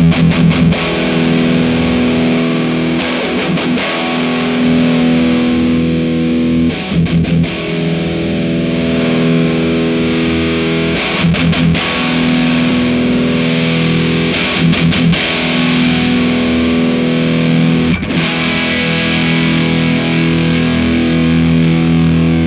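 Electric guitar played through a Marshall JCM2000 DSL100 valve amp head on its Ultra Gain channel, heavily distorted. Sustained chords are broken every few seconds by short runs of quick picked strokes.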